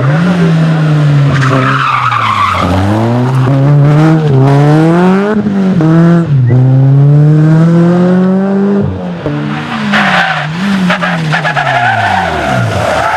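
Rally car engine accelerating hard through several gear changes, its pitch climbing and dropping back at each shift, then falling as it slows near the end, with tyres squealing in places.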